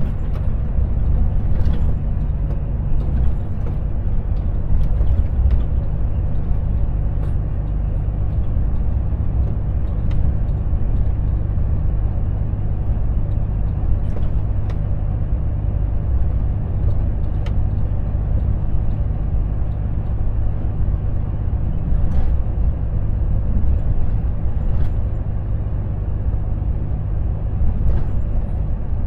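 Volvo FH truck on the move: a steady low diesel engine drone with road noise, and a few faint clicks.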